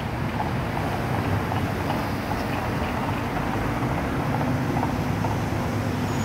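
Road traffic: cars driving slowly past, a steady low rumble of engines and tyres.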